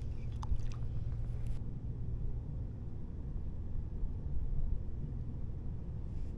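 Wind rumbling on the microphone, a steady low buffeting, with a few faint clicks in the first second and a half.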